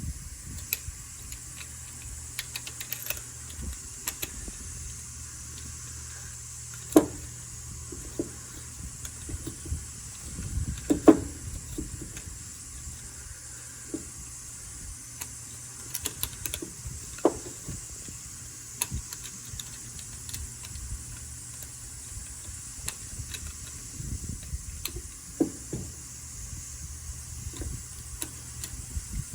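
Scattered clicks and knocks of things being handled, loudest about 7 and 11 seconds in, over a steady hiss and low hum.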